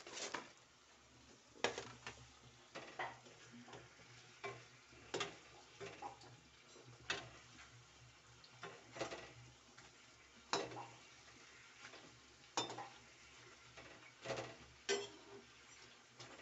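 Metal slotted spoon clinking and scraping against a steel kadhai at an irregular pace of about one stroke a second, as mathri are turned in hot oil. A faint frying sizzle runs underneath.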